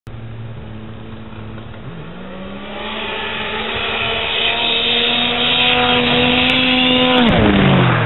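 Racing snowmobile launching down a drag strip at full throttle: its engine pitch climbs about two seconds in and holds high while it grows louder as the sled approaches, then drops sharply as it passes close by near the end.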